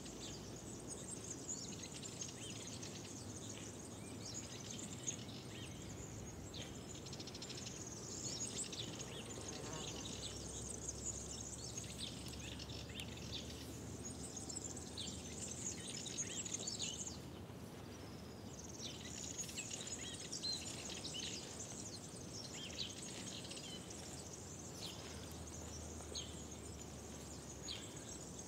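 Spring dawn-chorus ambience: many small birds chirping and twittering at once, with a short lull a little past halfway, over a faint steady low background rumble.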